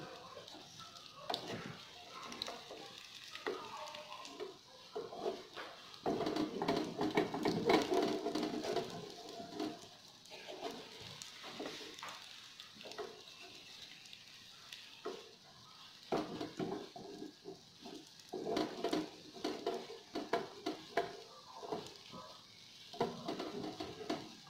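Egg and tofu omelette sizzling and crackling in oil in a nonstick frying pan, with a wooden spatula scraping and prodding at it now and then. A louder pitched sound comes in from about six to ten seconds in, and again from about sixteen to twenty-two seconds in.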